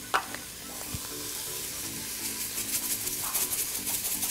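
Sliced mushrooms and onion sizzling in an Instant Pot's inner pot on the sauté setting: a steady hiss with crackles that grow denser from about two seconds in.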